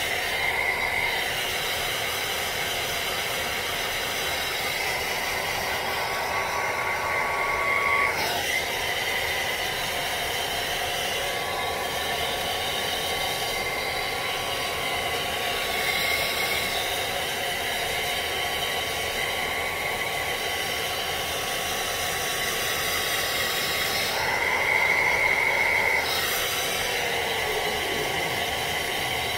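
Handheld hair dryer running steadily: a rush of blown air with a thin whine under it. Its tone shifts briefly about 8 seconds in and again from about 24 to 26 seconds in.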